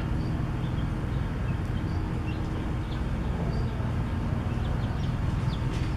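A steady low mechanical hum, like a motor or engine running, with a few faint, short high chirps over it.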